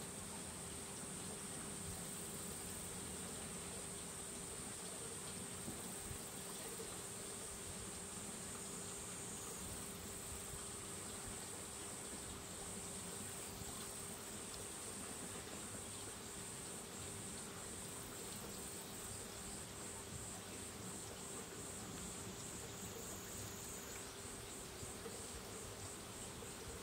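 Faint, steady, high-pitched shrilling of insects, which in places pulses rapidly from about halfway through. A faint low steady hum runs underneath.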